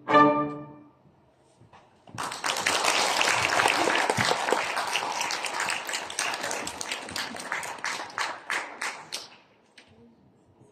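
A cello and wind ensemble's closing chord dies away about a second in; after a brief pause an audience breaks into applause, which thins into scattered claps and stops near the end.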